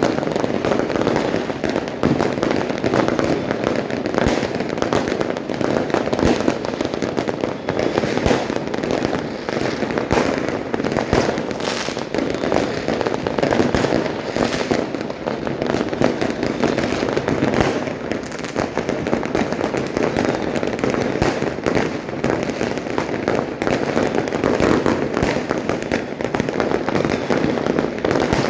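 Dense, continuous barrage of fireworks and firecrackers going off, with many overlapping bangs and crackles and no let-up.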